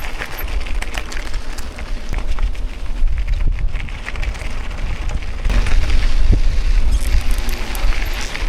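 Mountain bike rolling over a rough dirt trail: tyres crunching and the bike rattling, with heavy wind buffeting on the microphone. It gets louder about two thirds of the way through.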